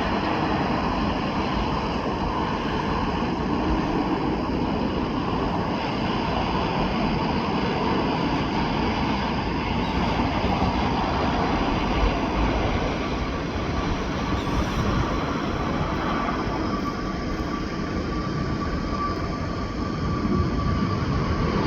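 Jet airliner engines running: a steady rush of engine noise, with a thin steady whine joining about halfway through.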